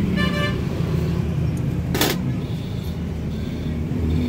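Steady low background rumble, with a short high-pitched tone just after the start and a single sharp click about two seconds in.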